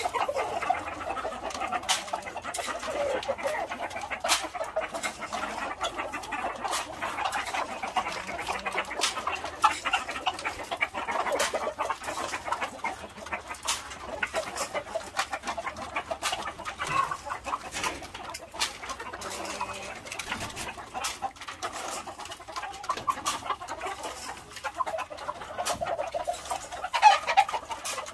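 Gamecocks clucking and calling in their pens, with frequent sharp clicks and knocks throughout. There is a louder call near the end.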